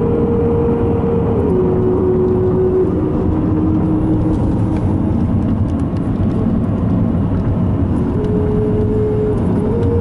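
Steady road and engine noise of a car cruising on a highway, heard from inside the cabin. Over it sits a steady tone that steps down in pitch about a second and a half in and again about three seconds in, then steps back up about eight seconds in and again near the end.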